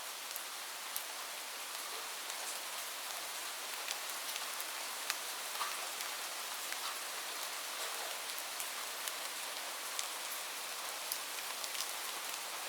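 Light rain falling steadily: an even hiss with scattered sharp ticks of individual drops striking a surface.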